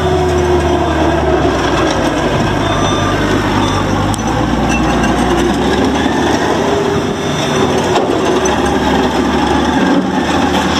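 Gehl CTL85 compact track loader's diesel engine running, its note shifting a few times, with a steady rattling mechanical clatter over it.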